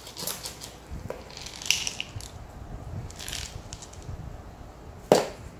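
Dry potting mix poured from a plastic scoop into a ceramic pot and pressed around a succulent with gloved fingers: scattered crunching and rustling of grit, with one sharp knock about five seconds in.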